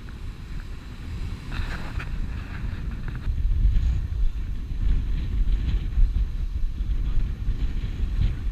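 Wind buffeting the headcam microphone over water rushing along the hull of a Thames sailing barge under sail, louder from about three and a half seconds in. A brief rustle comes about a second and a half in.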